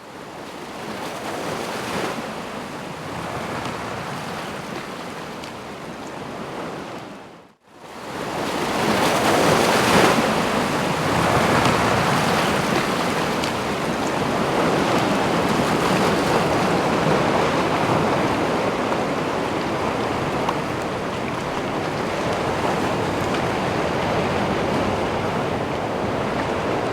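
Sea waves surging and washing at the shore, with wind. The sound drops out for a moment about seven and a half seconds in, then returns louder and steady.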